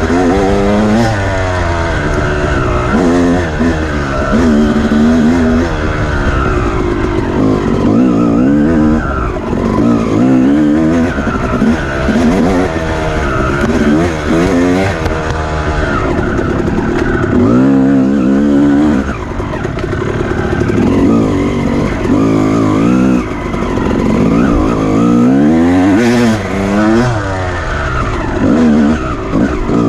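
Off-road dirt bike engine revving up and down over and over, its pitch climbing and dropping every second or two as the throttle is worked hard.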